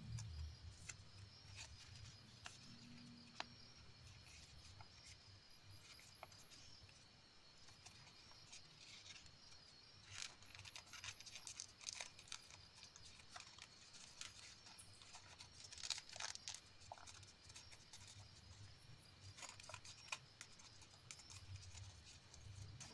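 Near silence with faint rustling and creasing of a sheet of origami paper being folded by hand: scattered soft crinkles and small clicks, a few clustered more thickly in the middle and later on.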